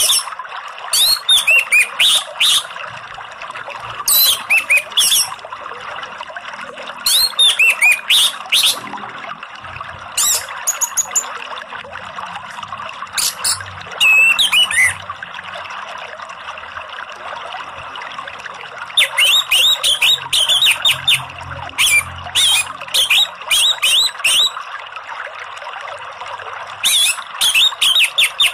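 Orange-headed thrush song in short bursts of rapid, high chirping phrases every few seconds, with a longer run of phrases past the middle. It sounds over a steady rush of flowing water, as used in a lure and therapy track for the bird.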